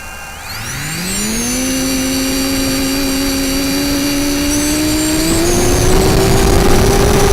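Racing quadcopter's brushless motors (EMAX RS2205S 2300KV) spooling up about half a second in, their pitch rising quickly and then holding steady. The pitch climbs again after about five seconds as the throttle goes up.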